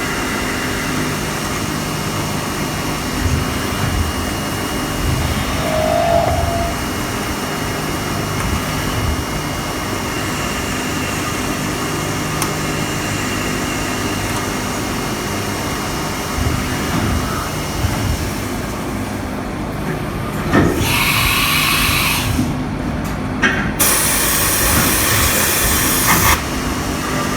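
CNC mill running a drilling cycle, a smaller pilot drill cutting the bore holes, with a steady machine hum. Near the end come two bursts of loud hiss, a few seconds apart.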